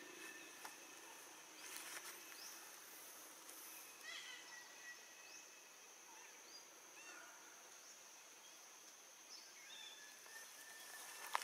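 Faint forest ambience: scattered short bird chirps and whistles over a steady high-pitched insect drone, with a sharp click near the end.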